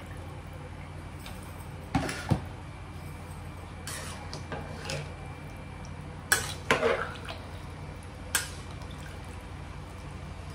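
A metal utensil clinking and knocking against a pressure cooker pot holding rice and water: a handful of short, sharp clinks spaced irregularly, a pair about two seconds in and the loudest about six and a half seconds in, over a steady low hum.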